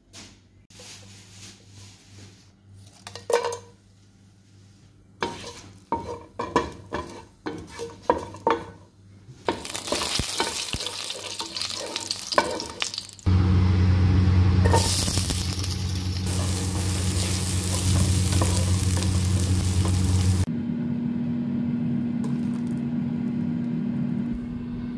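Clicks and knocks of kitchenware being handled, then whole spices sizzling in melted butter in a pot as a wooden spatula stirs them. About halfway through, a steady low hum comes in under the sizzling, and later it shifts to a slightly higher steady tone.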